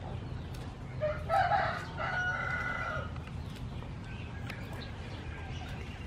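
A rooster crowing once, about a second in, for about two seconds. Faint crisp snaps of lettuce leaves being picked from their stems.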